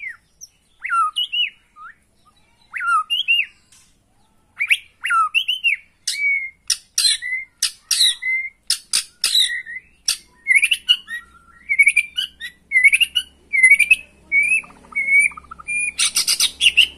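White-rumped shama (murai batu) singing its full song: a fast string of loud, sweeping whistles mixed with sharp clicking notes, with a harsh rattling chatter near the end.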